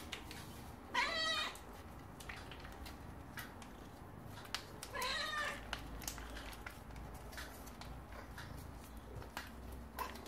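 A domestic cat meowing twice, about a second in and again about five seconds in, each call rising then falling in pitch.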